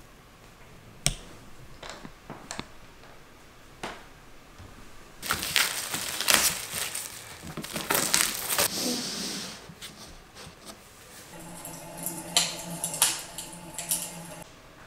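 Plastic packaging crinkling and tearing as an item is unwrapped by hand, loudest in the middle, after a few sharp clicks. Near the end come more crackles over a low steady hum.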